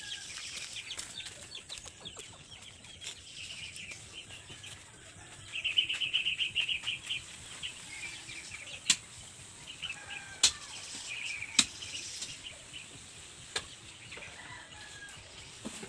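Birds chirping and calling, with a fast, dense run of chattering calls about six seconds in. Several sharp clicks or knocks stand out louder, spaced a second or two apart in the second half.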